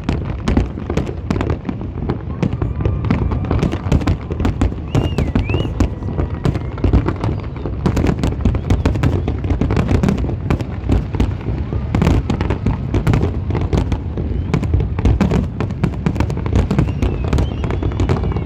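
Fireworks display going off continuously: a dense, rapid run of overlapping bangs and crackles with no pause.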